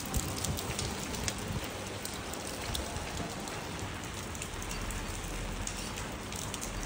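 Steady rain falling on wet pavement and puddles, an even hiss dotted with the ticks of single drops landing close by.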